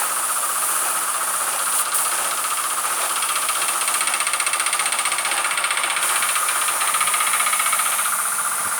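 Steady hiss of compressed air from automotive paint-spraying equipment, with a fast, even mechanical pulsing underneath like an air compressor running.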